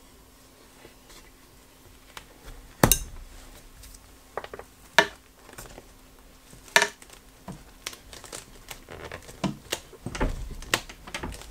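Handling sounds: a few sharp plastic knocks and clacks, the loudest about three seconds in, then rustling and scraping as a ribbed anti-static dust collection hose is worked onto the tape-wrapped inlet of a plastic Dust Deputy cyclone, a tight fit.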